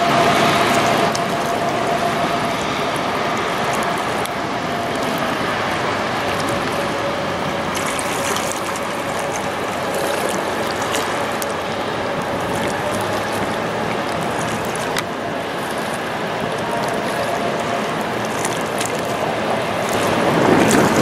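Passing inland motor tanker's engine humming faintly as a steady tone that sinks slightly in pitch, under a constant rush of river water and wind. A few small clicks are scattered through it.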